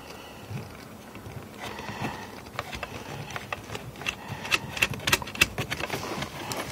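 Hand-threading a nut onto a car side mirror's mounting stud inside the door: a series of light metal and plastic clicks and small rattles, thickest and loudest about four to five and a half seconds in.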